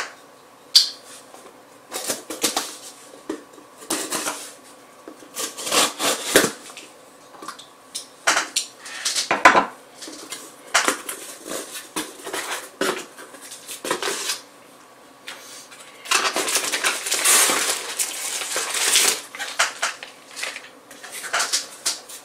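A shipping package being opened and its packing handled: scattered rustles, crinkles and knocks, with a longer run of crinkling about three-quarters of the way through, as a bubble-wrapped item in a plastic bag is taken out.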